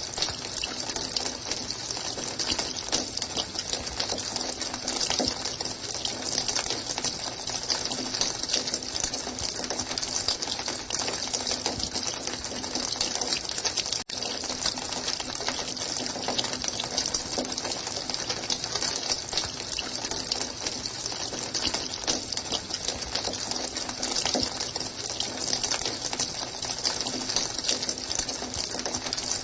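Running water: a steady, continuous rush and splash, unbroken except for a momentary dropout about halfway through.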